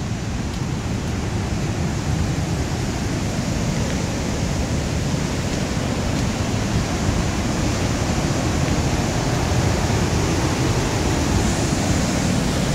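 Twister Falls on Eagle Creek: a steady rushing of falling water, growing slightly louder toward the end.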